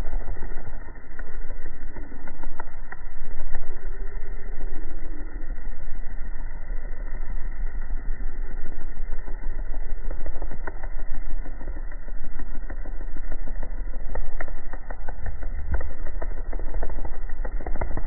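Domesticated silk moth beating its wings rapidly without lifting off, a steady low buzz with scattered faint ticks.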